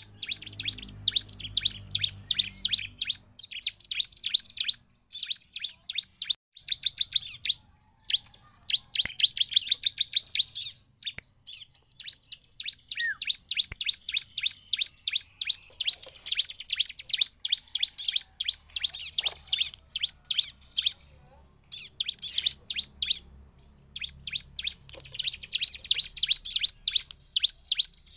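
Bar-winged prinia (ciblek) singing in full voice: rapid runs of sharp, high chirping notes in phrases lasting several seconds, broken by brief pauses.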